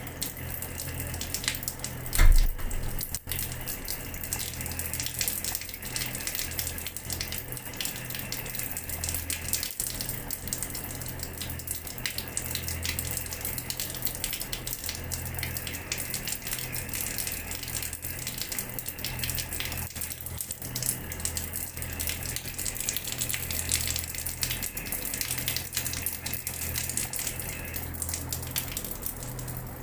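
Water from a tap running and splashing onto a floor: a steady stream of small splashes. A single low thump comes about two seconds in.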